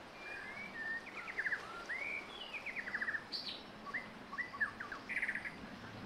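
Songbirds singing: a lively series of chirps, quick trills and rising whistled notes.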